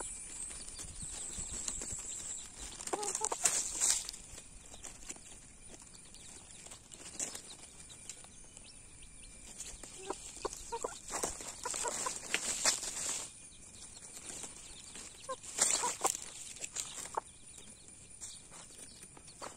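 Chickens foraging in dry leaves: a rooster pecking and scratching, with the dry leaves rustling and crackling in three spells and short clucks now and then.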